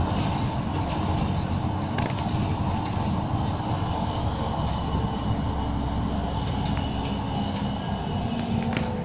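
Cabin noise of a moving city bus: a steady engine and road rumble. A light click sounds about two seconds in and another near the end.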